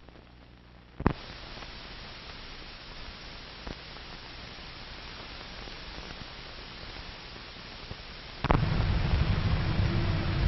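Surface hiss and static of an old 1940s film soundtrack, with a few sharp clicks and pops. About eight and a half seconds in, a louder low hum with steady tones cuts in and becomes the loudest sound.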